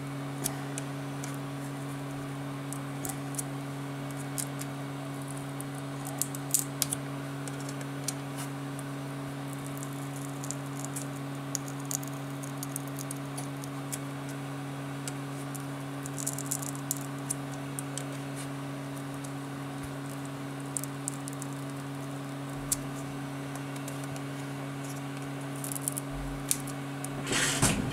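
Small clicks and scrapes of a thin metal pry tool working under the edge of a tablet's glued display panel, with a louder crackling scrape near the end, over a steady low hum.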